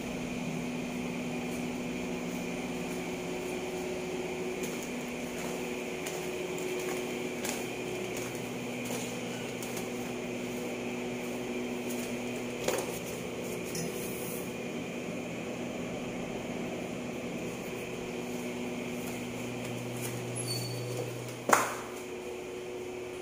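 Steady mechanical hum of indoor machinery, with a few fixed tones running through it. A soft knock about halfway through and a sharp click near the end.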